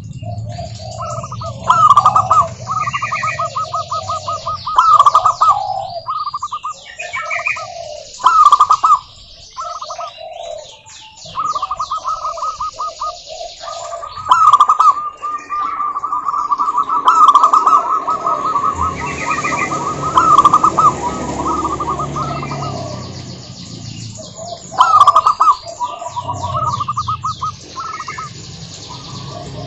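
Zebra doves calling: bursts of fast staccato cooing notes that repeat every few seconds, with one long unbroken run in the middle and higher chirping notes over them.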